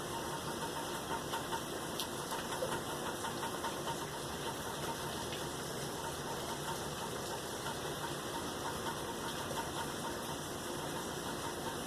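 Steady rain falling during a thunderstorm, an even hiss with many small irregular drop ticks; no thunder is heard.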